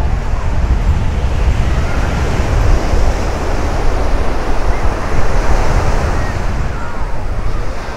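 Small sea waves breaking and washing up a sandy beach at the water's edge, a steady rushing surf that swells a little midway. Wind rumbles on the microphone underneath.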